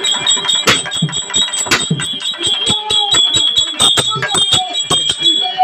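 Bells ringing in a steady high tone over rapid, irregular sharp strikes, with voices among them. The ringing cuts off near the end.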